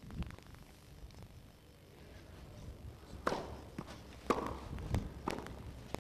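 Tennis ball being hit by rackets and bouncing on a clay court during a rally. There are four sharp pops over about two seconds, starting about three seconds in.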